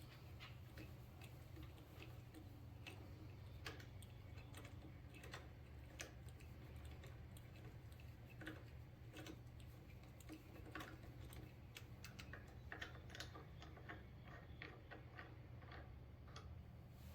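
Faint, irregular light clicks and ticks of a hand tool working a screw out of a motorcycle handlebar end, over a low steady hum.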